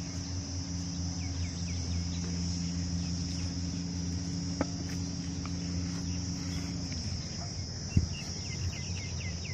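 Steady high-pitched drone of insects, crickets or cicadas, with runs of short chirps over it. A low steady hum runs beneath until about seven seconds in, then stops, and a single knock comes near the end.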